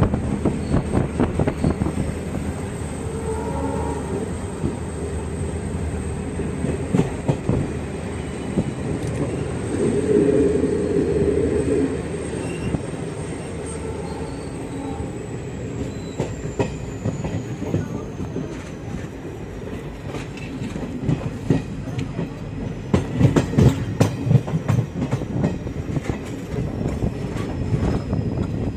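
Train running on the rails: a steady rumble with irregular clattering of wheels over the track. A faint high whine slowly drops in pitch from about halfway through.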